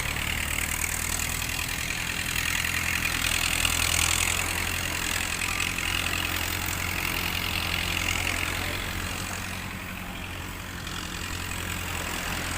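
A steady low engine hum under a high hiss that swells and fades.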